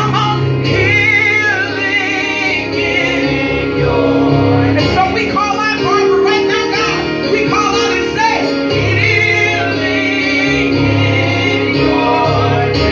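Worship music: a woman singing a sustained, wavering melody over held bass notes and accompaniment.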